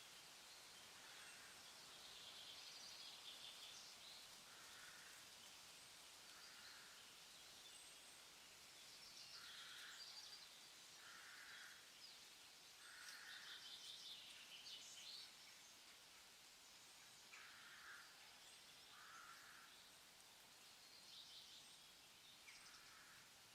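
Faint forest ambience: birds calling over a steady hiss, with short calls repeating every few seconds and higher chirps between them.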